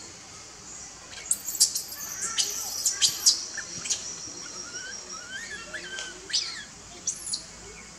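High-pitched animal chirps: a quick run of sharp chirps a little over a second in, with a thin steady whistling tone beneath them for a few seconds, then scattered shorter rising and falling chirps, two of them louder near the end.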